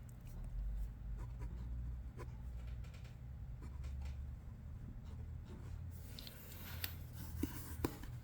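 Sketching strokes scratching on paper, over a steady low room hum. A few sharp clicks come near the end.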